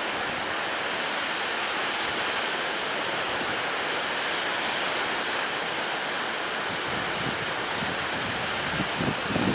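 A steady, even rush of sea surf under strong wind.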